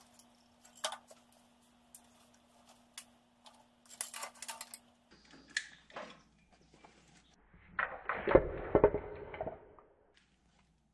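Small clicks and rattles of old wiring being worked loose by hand, then about eight seconds in a louder clatter and scrape as the removed tractor voltage regulator and its tangle of old wires are set down on a concrete floor.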